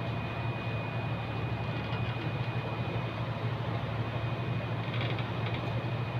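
Steady low drone of a cargo ship's running machinery, with a thin, steady high whine above it.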